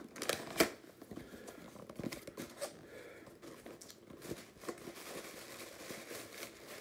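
Green cardboard mailer box being opened by hand: flaps pulled and folded open with sharp snaps and crinkling rustle, the two loudest snaps coming in the first second.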